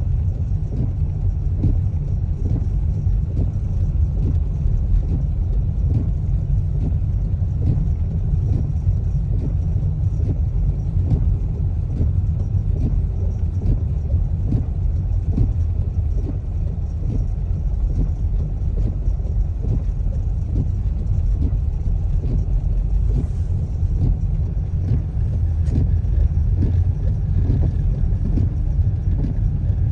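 Steady low rumble of a car being driven on a snowy road, heard from inside the cabin: engine and tyre noise.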